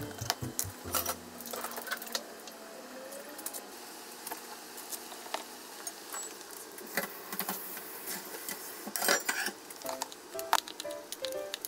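Quiet background music over cooking sounds: chopsticks clicking and tapping against a bowl and a frying pan, with salted water boiling in the pan.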